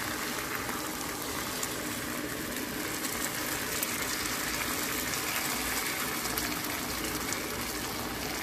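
Brown gravy pouring into a hot skillet over sautéed onions and a hamburger patty, with a steady sizzle from the pan.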